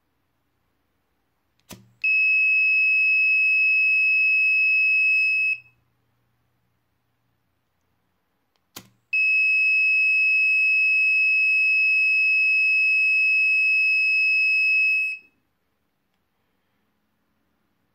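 Arduino fire-alarm buzzer sounding a steady high-pitched tone twice, first for about three and a half seconds and then, after a short pause, for about six seconds. Each tone follows a sharp click. The buzzer sounds when the KY-026 flame sensor detects a flame.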